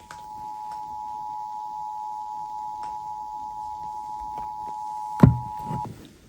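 Emergency Alert System attention signal for a Required Monthly Test: the standard steady two-tone alert, held for about six seconds and then cut off. A sharp click sounds near the end.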